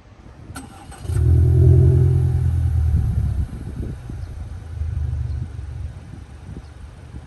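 Subaru Forester Sport's 1.8-litre turbo flat-four starting, heard at the twin tailpipes of its STI sport muffler: a short crank, the engine catches about a second in and runs fast for a couple of seconds, then drops back to a steady idle.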